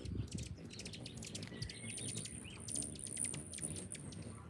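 Hummingbirds at feeders chipping: a quick scatter of sharp, high chip notes, joined about two seconds in by a thin, high steady whistle.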